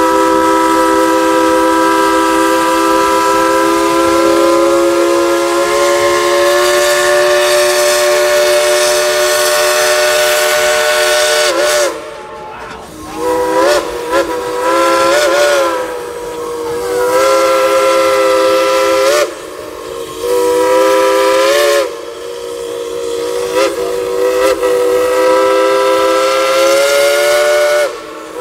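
Crosby three-chime steam whistle on a steam locomotive, played as a tune: one long chord of about twelve seconds that rises a little in pitch, then a run of shorter blasts whose pitch bends as each one opens and closes.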